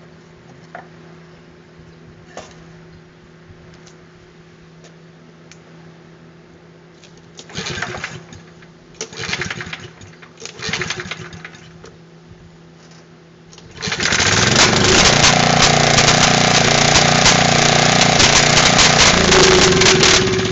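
9 hp Briggs & Stratton single-cylinder engine turned over by three pulls of the starter cord, then catching about 14 seconds in and running loud with a horrible clanging, before being shut off near the end. The clanging comes from a loose piece of foreign metal inside the combustion chamber, battering the valves and spark plug.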